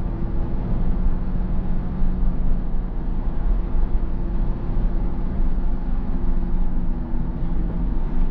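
Car running along the road: a steady rumble of engine and road noise with a low, even hum.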